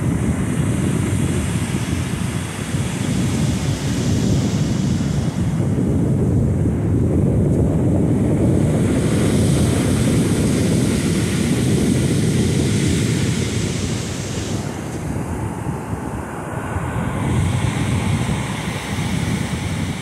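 Wind buffeting the microphone in a steady low rumble, over the hiss of surf breaking and washing up the beach.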